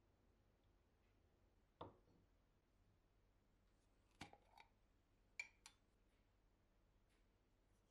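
Near silence with a few faint, short clicks and taps: one about two seconds in, then a small cluster of three, then two more close together.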